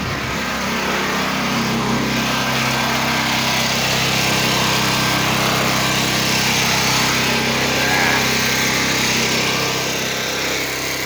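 Pressure washer's gas engine running steadily, with an even hiss over it.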